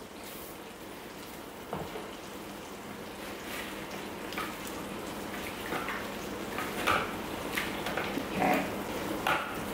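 Thermomix spatula stirring baby spinach into hot cream sauce in the stainless steel mixing bowl: irregular wet scraping and stirring strokes that grow busier after the first few seconds.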